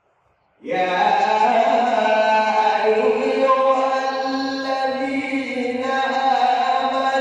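Male Quran reciter chanting in the melodic mujawwad style. The voice comes in after a silence about two-thirds of a second in and holds long, drawn-out notes that slide slowly in pitch.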